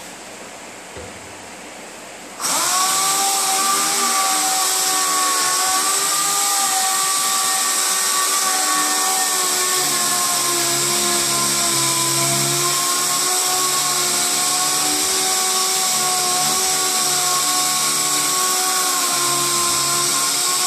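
Air-powered random-orbital sander wet-sanding automotive paint with a 3000-grit foam disc. It starts about two and a half seconds in and runs steadily, with a high whine that wavers slightly as the pad is pressed and a strong hiss of air.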